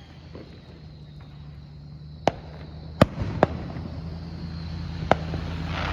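Fireworks going off: four sharp bangs, about two, three, three and a half and five seconds in. Under them is a steady low engine hum that grows louder toward the end.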